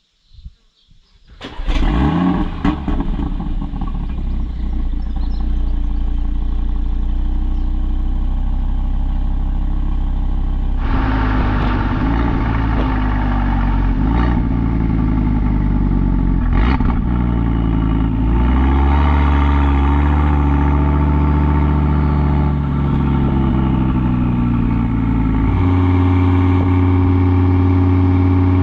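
Audi RS3 8V's turbocharged 2.5-litre five-cylinder heard through its RS exhaust in Dynamic valve mode: it starts about a second and a half in with a short flare, settles to a steady idle, then pulls away at low speed, its note changing a few times as it goes.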